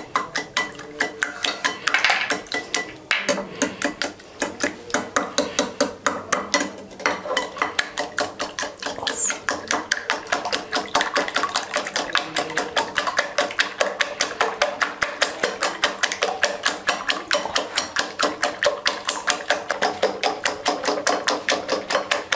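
Eggs being beaten by hand with a whisk in a bowl: rapid, regular clicking of the whisk against the bowl, several strokes a second.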